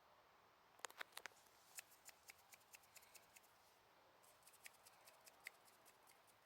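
A faint, irregular series of sharp clicks and ticks, about two dozen, in two clusters with a short pause between them.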